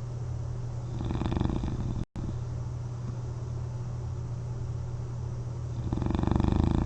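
A person asleep on their back with a CPAP mask on, snoring in two fluttering, rattly breaths, the first about a second in and the second near the end, over a steady low hum. The sound cuts out for a split second about two seconds in.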